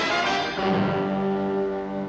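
Orchestral cartoon score with brass, moving through chords and then settling into one held chord about halfway through.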